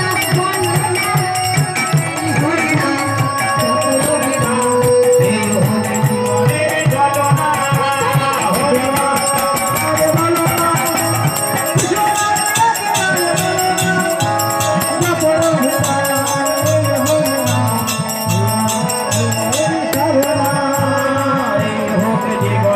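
Bengali kirtan music: a khol, the clay double-headed barrel drum, beaten in a steady rhythm, with singing and a constant metallic jingling over it.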